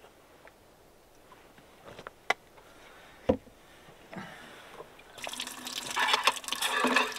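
A few light clicks and one sharp knock, then from about five seconds in water pours from a container into a plastic wash basin, a steady splashing rush.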